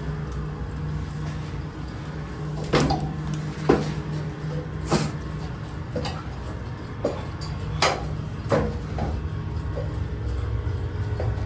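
A series of about eight sharp knocks and clanks, irregularly spaced, over a steady low machinery hum.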